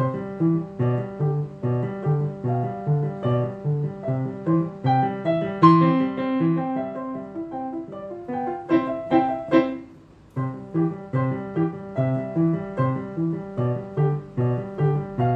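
A piano played solo with both hands: a melody over a steady pulse of repeated low notes. The playing breaks off briefly about ten seconds in, then carries on.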